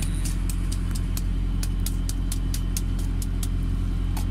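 Quick scraping strokes of a knife on a great barracuda, about four short clicks a second, over the steady hum of an idling engine.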